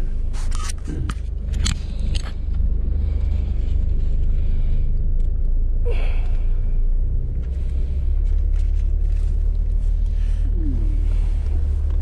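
Steady low rumble of a car on the move, heard from inside. A few sharp clicks and knocks sound in the first two seconds.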